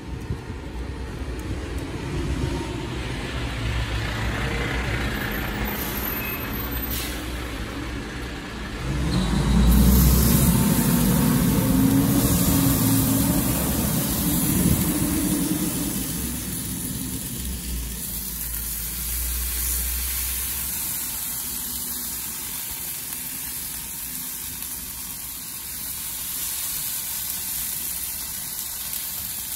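Chicken drumsticks in barbecue sauce sizzling on the hot grates of a gas grill, with a steady low rumble, loudest from about ten to fifteen seconds in.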